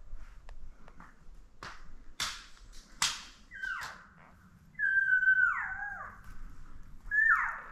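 Three high, whistled elk mews that slide down in pitch, about three and a half, five and seven seconds in. The middle one is the longest and loudest, dropping in steps. A few sharp snaps come before them.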